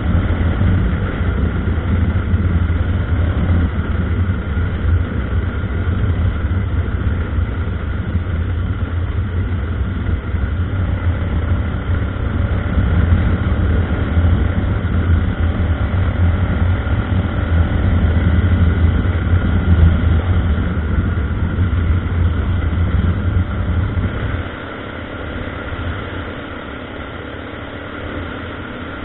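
Honda NX 350 Sahara's single-cylinder engine running steadily while the motorcycle is ridden, its low, heavy note steady for most of the stretch. About 24 seconds in, the low engine sound falls away abruptly and stays quieter.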